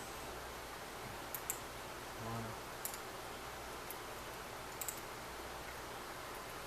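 Small metallic clicks of a lock pick working the pins of a brass American round-body padlock: a few sharp ticks, some in quick pairs, spaced a second or two apart.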